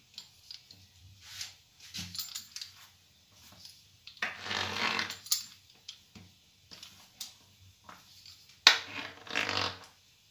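Hands pressing, smoothing and pulling a sheet of puff pastry on a stone countertop: soft rubbing and scraping noises in two longer stretches, with small knocks, one of them sharper near the end.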